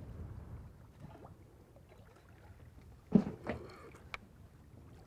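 Water lapping against the hull of a small fishing boat, a faint low wash, broken a little over three seconds in by a sharp knock and a softer one just after.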